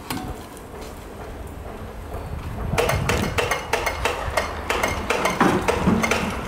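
Metal clanking and knocking from parts of a polyethylene pipe butt fusion welding machine being handled and fitted. It starts about three seconds in as a quick, irregular run of knocks.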